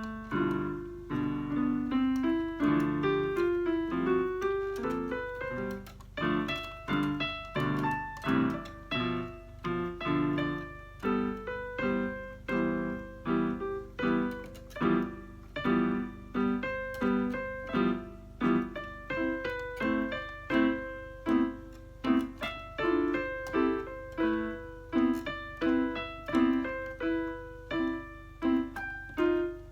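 Electronic keyboard playing in a piano voice: a steady run of single notes and chords at a moderate, even pace, about one to two notes a second.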